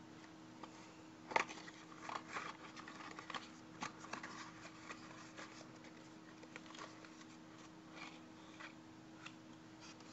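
Handling noise from a small pin-back badge toy: rustling and clicking of its plastic wrapper and fingers, with a sharp click about a second and a half in, over a faint steady hum.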